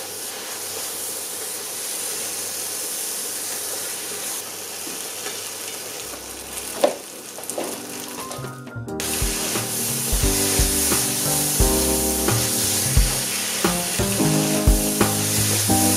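Pad Thai noodles sizzling in hot oil in a pan as they are stir-fried, a steady hiss with a single knock of the utensil about seven seconds in. From about halfway, background music with a beat plays over the sizzle.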